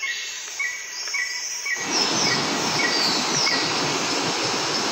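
Steady rush of a mountain waterfall, swelling loud about two seconds in. Before that, a short chirp repeats roughly twice a second over a fainter hiss.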